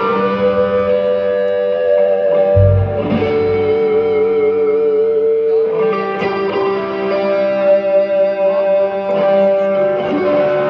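Live rock band playing an instrumental passage: electric guitar through effects holds long ringing notes, one of them wavering. A deep bass note swells in for about a second after a couple of seconds.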